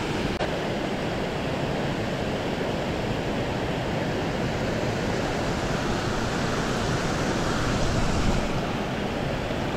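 Water pouring over a low river weir: a steady rushing wash that holds even throughout.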